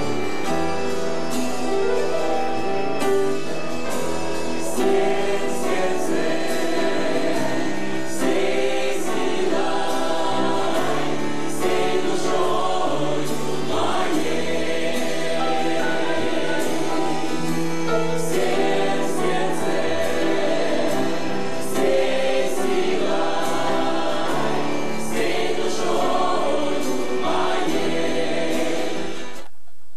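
Mixed church choir singing a gospel song with instrumental accompaniment and a steady bass line. The music cuts off abruptly near the end.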